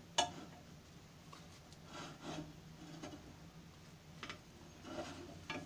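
A slotted spatula scraping and knocking against a griddle pan as halved plantains are turned over, in several short scrapes and taps spread through the seconds.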